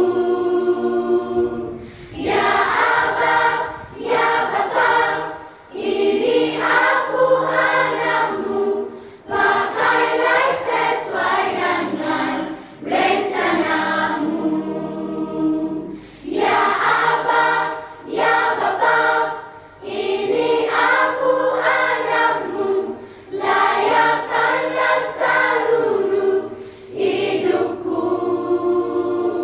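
Children's choir singing a Christian song in Malay, several voices together, in phrases of two to three seconds with short breaths between.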